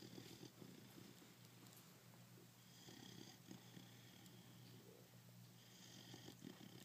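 Five-month-old pit bull puppy snoring softly: a fluttering, rattly snore comes about every three seconds, three breaths in all, the later two with a faint high whistle.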